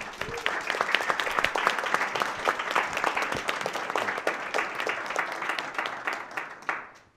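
Audience and panelists applauding: dense, steady clapping that dies away near the end.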